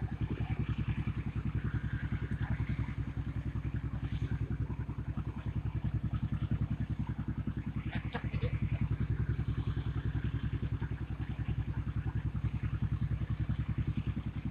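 Boat's diesel engine running steadily with a rapid, even low throb.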